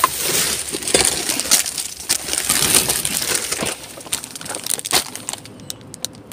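Plastic bin bags and plastic-wrapped packaging rustling and crackling as hands rummage through a wheelie bin, with small sharp clicks among it. Louder for about the first four seconds, then quieter with scattered clicks.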